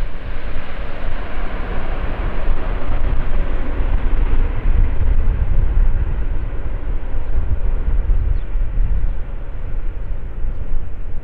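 The four TP400 turboprop engines of an Airbus A400M Atlas at take-off power, a loud continuous rumble with a heavy low end as the aircraft climbs away, its higher tones slowly fading.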